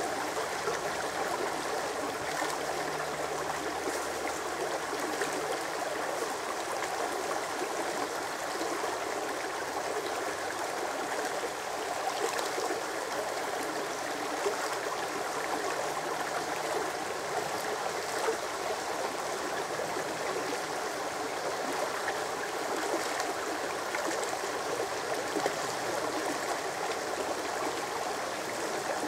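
Shallow brook babbling over rocks and stones, a steady even rush of water.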